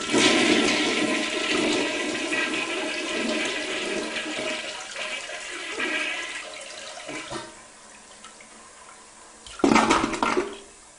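A sudden rush of water that starts at once and fades away over about seven seconds, followed by a second short, louder rush near the end.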